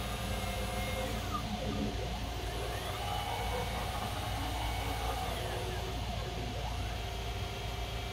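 CNC mill's closed-loop stepper motors driving the ball screws as the spindle head and table traverse, giving whines that rise and fall in pitch as each move speeds up and slows down. A steady machine hum sits underneath.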